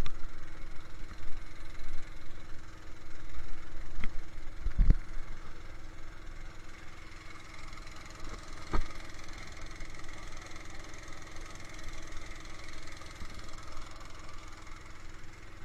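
A small fishing boat's engine running steadily, with a few knocks, the loudest about five seconds in.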